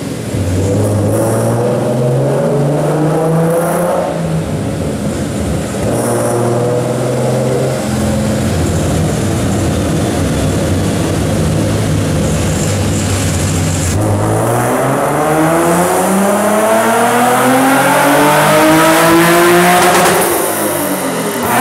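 Hyundai Genesis Coupe's 3.8 V6 engine and exhaust running a chassis-dyno pull with the reflashed ECU. It revs up through shifts at about 4 and 6 seconds, holds steady, then makes a long pull rising in pitch from about 14 seconds that drops off sharply just before the end as the run finishes.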